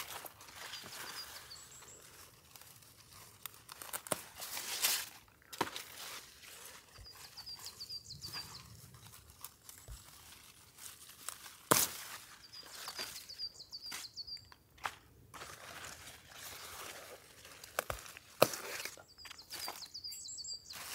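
A small songbird repeats a short phrase of high, quick notes four times, about every six seconds. Under it run rustling and crinkling handling sounds with a few sharp knocks, the loudest about twelve seconds in and near the end.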